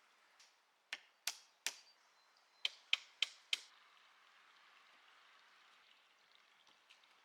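Seven sharp knocks in two quick runs, three and then four, over a faint steady hiss.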